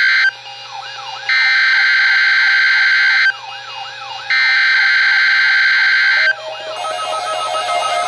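NOAA Weather Radio SAME/EAS header: loud, harsh buzzing digital data bursts about two seconds long, separated by one-second gaps. The tail of the first burst is followed by two more, the standard three-burst header that opens the Required Weekly Test. Fainter warbling, gliding tones fill the gaps, and near the end a stepped electronic melody begins.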